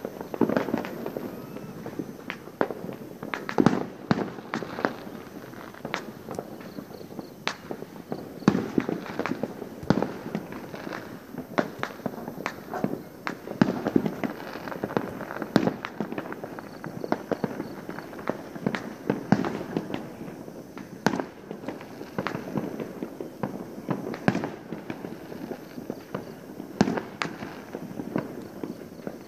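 Many fireworks and firecrackers going off at once: an unbroken, irregular run of bangs and pops, several a second, with louder sharp cracks every second or two.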